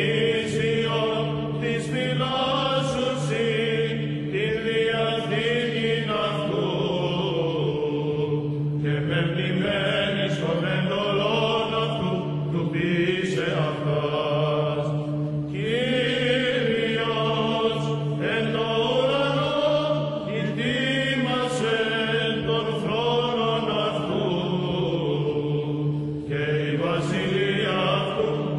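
Greek Orthodox chant: sung voices carrying a winding melody over a steady held drone.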